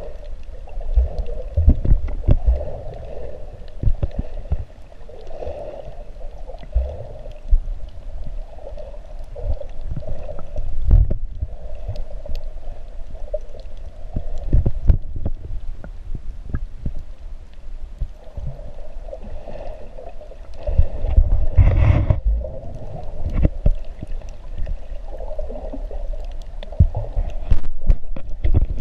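Underwater sound picked up by a submerged camera: a muffled steady hum with low water rumble and scattered thumps, the loudest about two-thirds of the way through.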